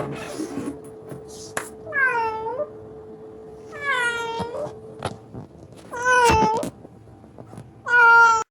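Large stray cat meowing four times, about two seconds apart, each call rising and then falling, the last two louder and longer.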